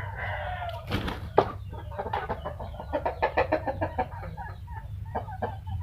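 Chickens clucking in many short, sharp clucks, after a drawn-out call that trails off in the first moment, over a steady low hum.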